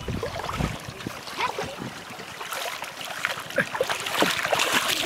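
Water sloshing and splashing as hands grope through shallow water beside a heap of straw, feeling for fish, with scattered drips and small gurgles. The splashing gets busier and a little louder over the last two seconds.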